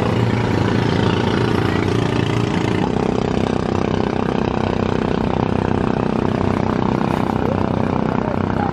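An engine running steadily at a constant pitch, its tone shifting slightly about three seconds in.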